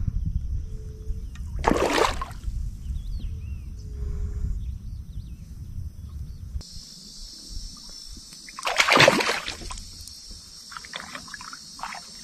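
Water splashing sharply twice, about two seconds in and again near nine seconds, from a hooked fish fighting at the surface beside a kayak, over wind rumble on the microphone. Partway through, the rumble drops away and a steady high hiss takes over.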